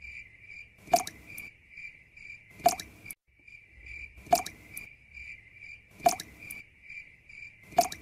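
Single water drops plop into a pool, five in all, about every second and a half to two seconds. Under them crickets chirp steadily, about three chirps a second. The sound cuts out for an instant about three seconds in.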